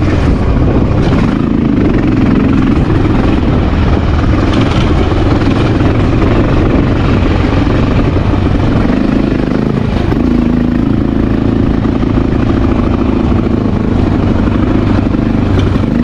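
Honda XR650L's single-cylinder four-stroke engine running under way on a dirt trail, a steady loud engine note that steps up in pitch about ten seconds in.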